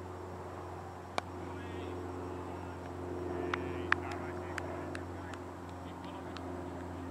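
A single sharp knock about a second in as the cricket delivery reaches the batsman, followed a couple of seconds later by a scattering of lighter sharp claps. Distant players' voices and a steady low hum sit underneath.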